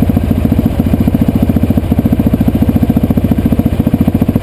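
Yamaha Rhino UTV's single-cylinder engine running steadily, a fast, even pulsing with no revving.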